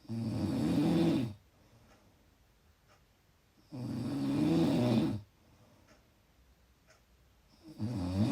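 A person snoring: three snores about four seconds apart, each lasting just over a second, with quiet in between; the third begins near the end.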